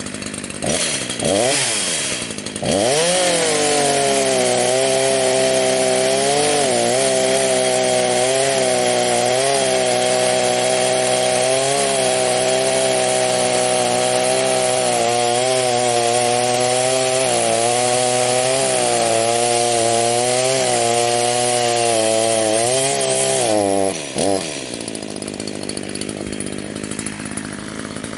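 Chainsaw revved up to full throttle and held there while cutting a stump, its pitch dipping and recovering slightly as the chain bites. Near the end it drops back to a lower idle.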